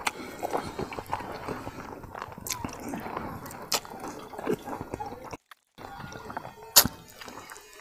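Close-miked wet eating sounds: chewing, lip smacking and finger licking while eating pork tail and trotters by hand, with scattered small clicks, a brief drop to silence about five and a half seconds in, and a sharp click about a second later.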